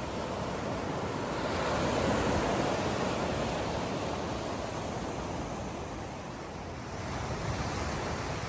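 Sea surf washing onto the shore: a steady rush that swells about two seconds in and then eases.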